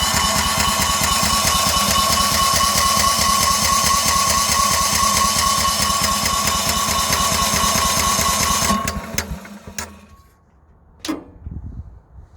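An engine running steadily with a high whine over its even beat, then cutting off abruptly about nine seconds in, followed by a few clicks and knocks.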